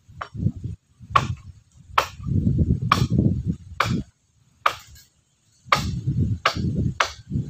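Repeated sharp blows of a tool on wood, about one a second at a slightly uneven, hand-driven pace, with duller low thuds between them.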